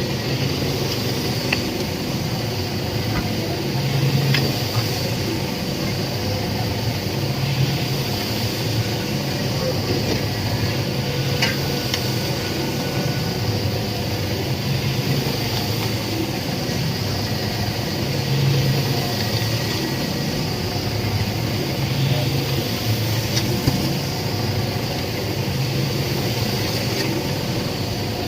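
Concrete pan mixer running steadily, its low hum swelling and fading about every two and a half seconds as the machine turns.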